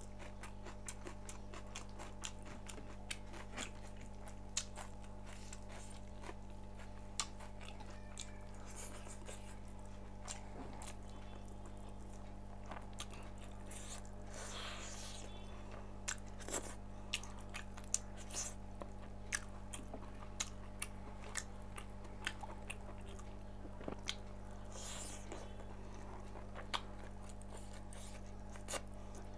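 Close-miked chewing and biting of pork: wet mouth clicks and sharp crunches at an irregular pace, coming thicker about halfway through, over a steady low electrical hum.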